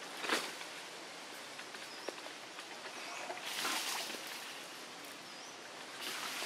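Outdoor ambience: a steady hiss with a brief swell of noise about halfway through and another near the end, a few light clicks, and two faint, short rising chirps.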